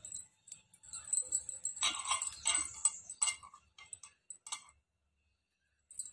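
Light metallic jingling and clinking with soft handling noises as a hand shapes a small ring of coconut-burfi dough and presses it onto a steel plate. The clinks come in short clusters and stop for about a second near the end.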